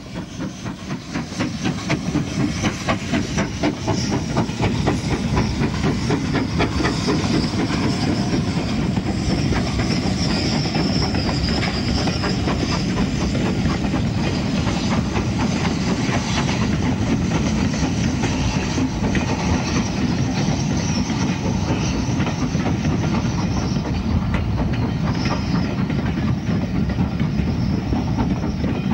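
Steam locomotive hauling a passenger train: rapid, even exhaust beats over steam hiss and the running of the coaches on the rails. It grows louder over the first few seconds, then holds steady.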